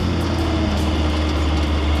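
Off-road race car engine running with a steady, low drone.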